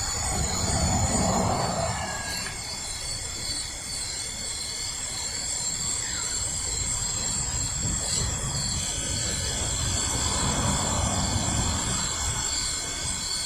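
Small portable coffee maker running steadily while it brews a shot: a continuous low mechanical hum with hiss and a faint high whine.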